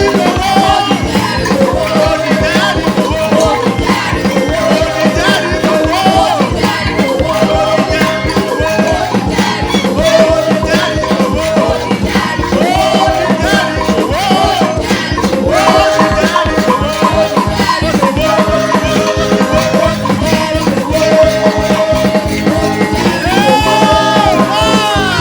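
Loud praise music: singing voices over a steady beat of shakers and drums.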